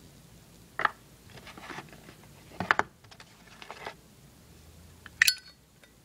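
Brushed chrome Zippo lighter being clicked open and shut: three sharp metallic clicks about a second apart or more, with softer fiddling rattles between, the last click ringing briefly like the lid snapping. This is the classic Zippo lid clink.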